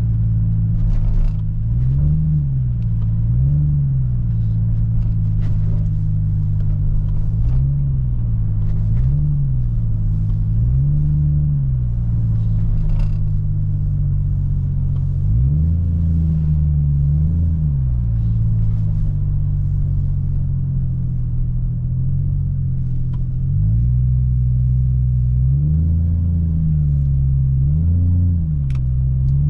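2003 Chevrolet Trailblazer's 4.2-litre straight-six engine running during slow driving, its pitch rising and falling in short swells every second or so, in several groups, as the throttle is opened and eased off.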